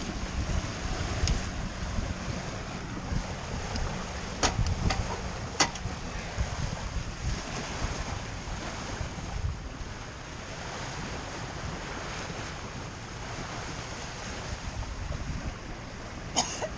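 Wind buffeting the microphone and water rushing along a sailboat's hull as it reaches under spinnaker, a steady rushing noise with a deep rumble. A few sharp knocks come through about four and a half and five and a half seconds in, and a short cluster near the end.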